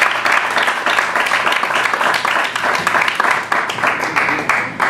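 Audience applauding, a dense patter of many hands clapping at once.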